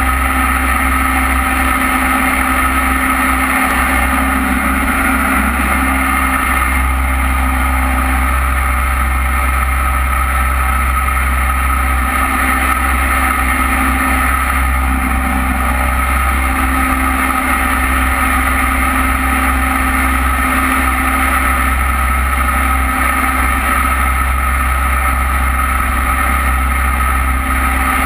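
Jet boat running at speed, its engine droning steadily under the rush of water past the hull.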